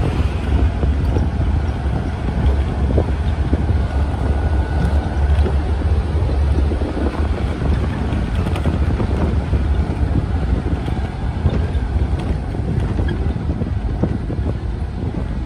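Heavy wind buffeting on the microphone over the steady low rumble of a vehicle moving along a gravel road.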